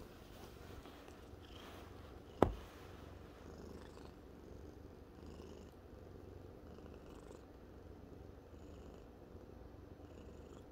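Domestic cat purring steadily, a low continuous rumble. A single sharp click about two and a half seconds in.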